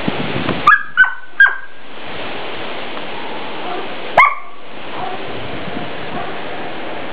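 Dog barking: three quick sharp barks about a second in and one more about four seconds in, over a steady rush of wind noise.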